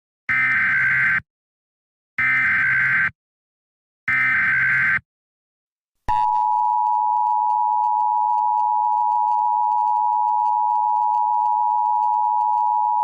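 Emergency Alert System tones: three short SAME header data bursts, each about a second long, then the steady two-tone EAS attention signal starts about six seconds in and holds.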